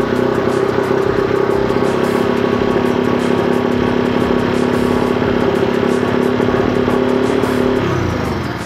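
Motorcycle engine running steadily at a fast idle of about 4,000 rpm, then winding down and cutting out near the end.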